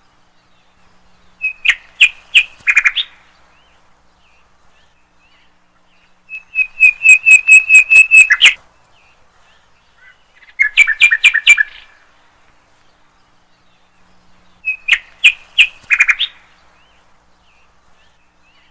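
A bird calling in four bursts of quick, repeated high notes, each burst a second or two long and a few seconds apart.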